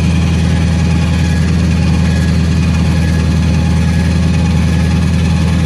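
Electric tongue jack on a travel trailer running steadily, its motor lowering the trailer tongue down onto the truck's hitch ball, over a steady low hum.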